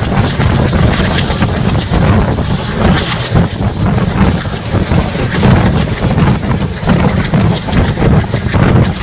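A WDM-3A diesel locomotive's ALCO engine running hard, heard from aboard the moving train, with heavy wind buffeting the microphone over a deep, steady rumble.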